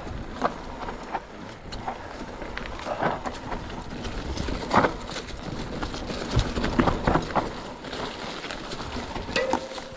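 Mountain bike rolling fast down a dirt singletrack: a steady rush of tyres on loam, with frequent clatters and knocks from the bike over roots and bumps, and a brief steady squeal just before the end.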